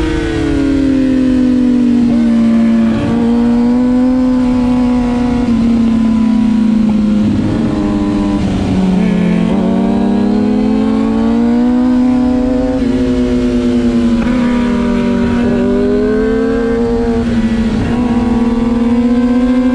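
A stock Kawasaki ZX-6R's inline-four engine running hard, heard onboard. Its pitch falls and rises several times, with short breaks as the rider changes gear and brakes and accelerates through corners.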